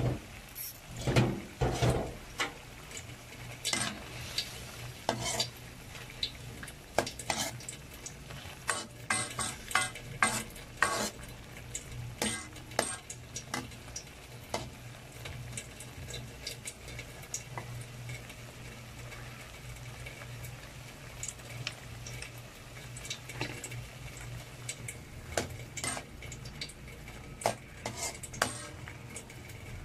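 Metal ladle stirring liver pieces in a nonstick wok: repeated clinks and scrapes against the pan, frequent in the first half and sparser later, over a light sizzle of the simmering sauce and a steady low hum.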